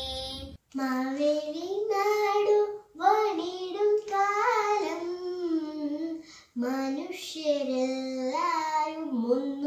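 A young girl singing a Malayalam Onam song unaccompanied, in long held notes. The singing drops out briefly about half a second in and again around six seconds in.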